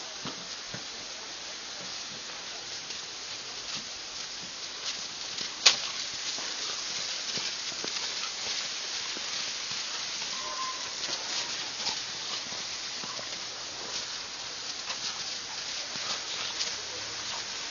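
Two dogs scuffling and play-fighting in snow, snow crunching and crackling under their paws over a steady hiss, with one sharp click about six seconds in.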